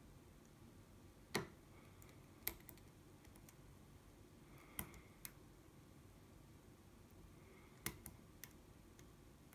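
Faint, sparse metallic clicks of a hook pick working the pins of an ASSA 700 lock under tension from a tension tool: about seven sharp clicks spread unevenly, two of them louder than the rest.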